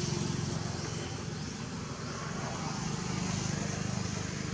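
A steady low engine rumble from a distant motor, with a faint high hiss above it.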